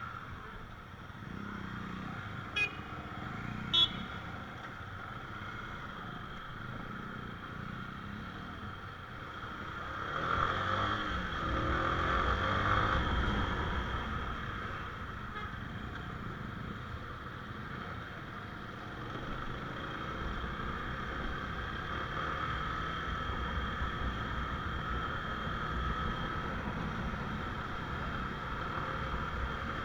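Motorcycle running steadily while riding, with two short sharp clicks a few seconds in and a louder swell, as if building speed, about ten seconds in.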